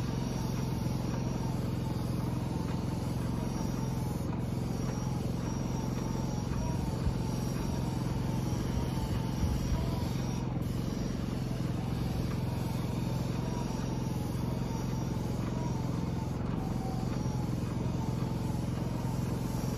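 Small portable generator engine running steadily at a constant speed, powering an airless paint sprayer.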